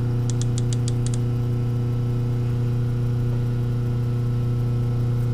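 Colchester 15x48 metal lathe running at a steady speed, a constant motor hum, with a quick run of light ticks in the first second.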